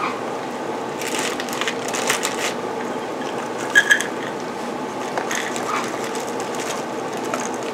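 A saucepan of water boiling steadily on the stove. Over it, a dry rustling and scraping about a second in, then two light clinks with a brief ring near the middle, as raisins are handled and measured out.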